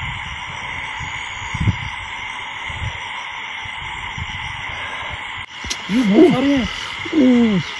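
Steady chorus of night insects, several high-pitched shrill tones held without a break. After a sudden cut about two-thirds of the way through, two louder groups of short voiced calls come in, each sliding up and down in pitch.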